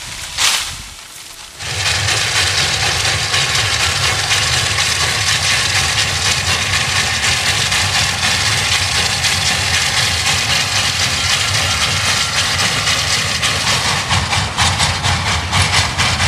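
Small narrow-gauge sugar-mill steam locomotive working along the line, a loud steady mix of chuffing and running noise. Its exhaust beats come through as a quick rhythm as it draws close near the end. A short swishing noise comes about half a second in, before the locomotive sound starts.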